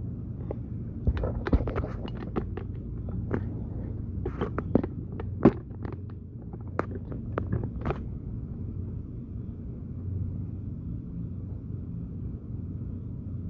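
Steady low rumble of wind on the microphone. A run of sharp clicks and knocks falls between about one and eight seconds in, the loudest about five and a half seconds in.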